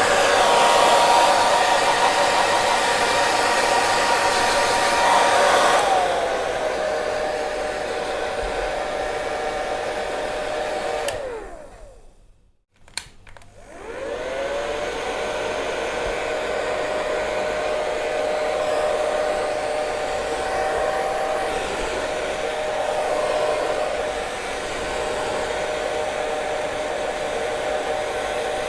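Hair dryer running with a steady rush of air and a motor whine. About six seconds in it drops to a lower, quieter setting. Near the middle it is switched off and back on: the whine falls away almost to silence, then rises again and settles into a steady run.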